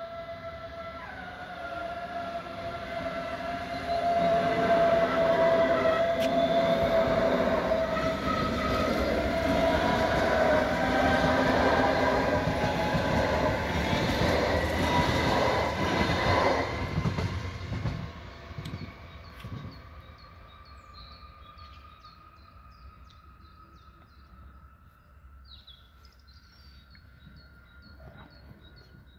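Munich S-Bahn class 423 electric multiple unit accelerating out of the station and running past, its traction motors giving a whine that rises steadily in pitch over the rumble of wheels on rail. It is loudest for about twelve seconds as it passes, then fades as it moves away, its whine still faintly rising.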